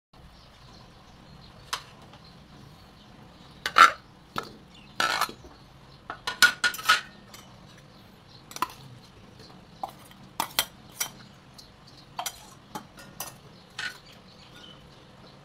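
Irregular clinks, knocks and short clatters of metal kitchenware: a steel bowl and utensil knocking against a steel wok as fish pieces and pounded paste are tipped in, with no sizzling. The loudest knock comes about four seconds in, with busier clattering a little later.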